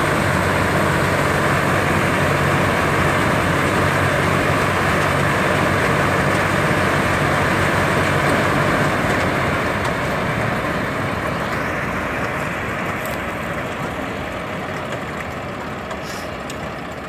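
Tractor-driven combine harvester running: a steady engine drone mixed with the rushing of the threshing machinery and grain spout as it unloads grain. It runs loud and steady for about nine seconds, then slowly fades.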